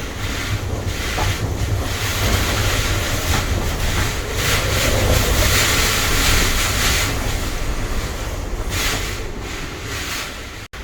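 Typhoon wind gusting hard and buffeting the microphone with a deep rumble, swelling strongest around the middle. The sound cuts out for an instant near the end.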